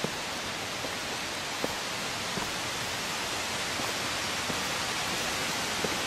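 Steady rushing of a waterfall, growing slightly louder, with a few faint taps of footsteps on the stone steps.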